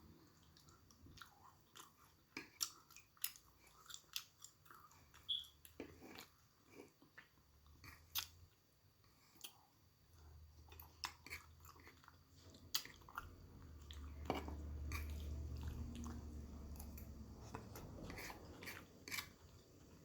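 A person chewing and biting food, with many small mouth clicks. A low rumble swells about two-thirds of the way through.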